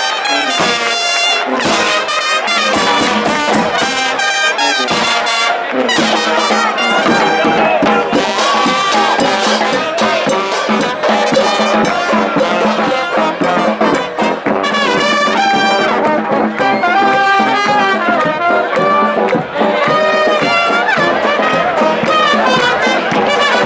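Spanish charanga street band playing, its brass section to the fore.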